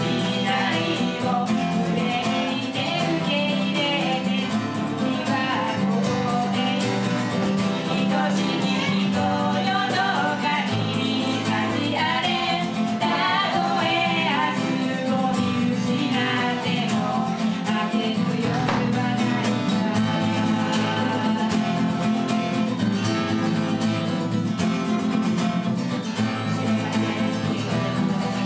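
Two steel-string acoustic guitars strummed together while women sing a pop song, played live.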